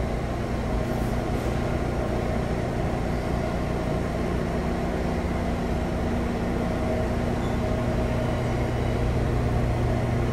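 A Kawasaki R142A subway train standing in the station with its doors open, humming steadily from its onboard equipment, with a few held low tones. The level rises slightly near the end.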